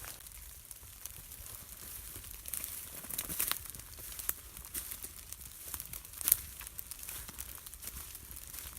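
Crinkling rustle of rain gear or brush with scattered sharp ticks, the loudest about three and a half and six seconds in, over a steady hiss.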